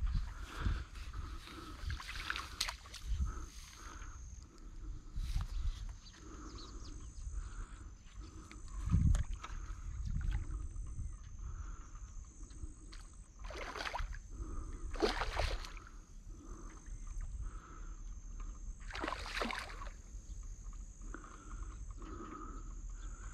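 Water splashing three times, at about 14, 15 and 19.5 seconds, as a big hooked barbel thrashes near the surface while it is played in. Under it runs low rumbling from handling or wind, and a steady rhythmic chorus of calling animals repeating about twice a second.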